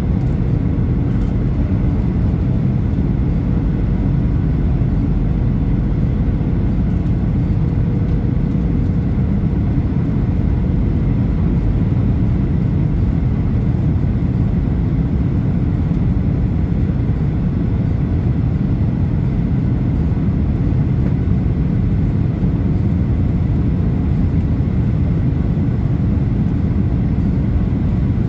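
Jet airliner cabin noise at a window seat: a steady, deep rumble of engines and airflow, with a faint steady whine over it.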